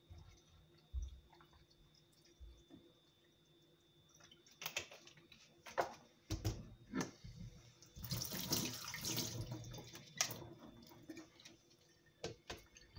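Water running for about two seconds, a little past the middle, as water is added to cut fruit to cover it. Scattered knocks and clatter of kitchen handling come before and after.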